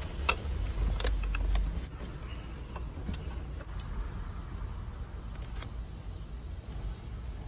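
Light clicks and rattles of cables and plastic connectors being handled, a few of them close together in the first two seconds and some more scattered later, over a steady low rumble.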